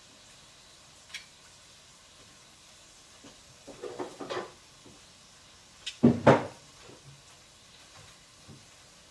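Knocks and clatter of hard objects being handled: a small click about a second in, a short rattle around four seconds in, and a loud double knock about six seconds in.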